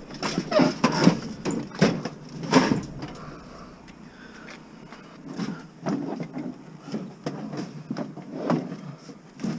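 Irregular knocks, bangs and scrapes of scrap being handled. They come thick and fast for the first three seconds, ease off, then pick up again about five seconds in.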